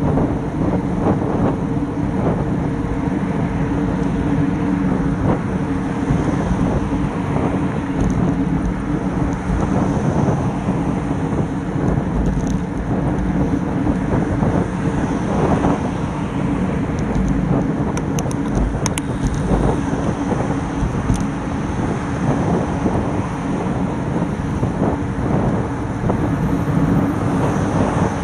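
Wind rumble and road vibration picked up by a handlebar-mounted action camera on a road bike moving at about 20 mph: a steady, loud rush with a low hum and scattered knocks from the road surface.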